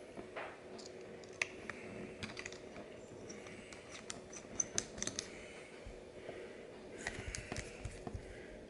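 Small metal clicks and taps from chrome wrench sockets being handled and fitted on an extension bar. The clicks are irregular, with sharper ones clustered near the middle and near the end.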